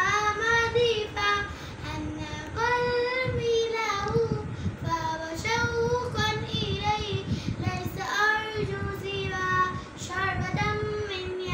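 A young girl singing a naat, a devotional poem in praise of the Prophet Muhammad, unaccompanied, in long held notes that waver and slide between phrases.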